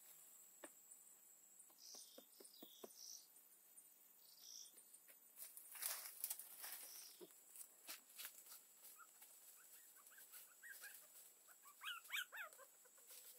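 Puppy whimpering faintly, a few short high cries that bend in pitch near the end. Light taps and rustles come earlier.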